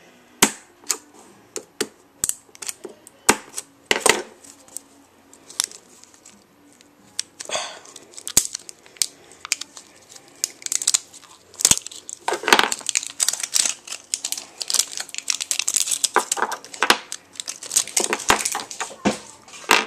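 Plastic battery packaging being torn and pried open by hand: an irregular run of sharp crackles, snaps and crinkles, coming thicker and louder in the second half.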